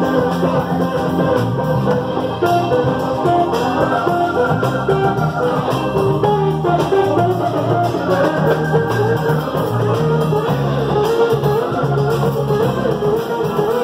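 Live band playing: an electric guitar leads a melodic line over organ, bass and drums.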